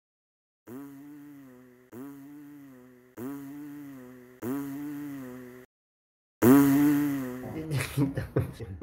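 A pitched, buzzy comic sound effect repeated four times, each about a second long, then a fifth, louder one that breaks into rapid sputtering near the end.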